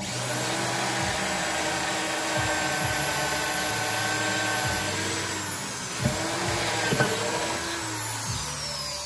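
Corded electric drill running at full speed, boring a hole into a wooden board. Its motor whine starts abruptly, sags briefly in pitch about two-thirds of the way through as the bit bites, and near the end falls steadily as the motor winds down.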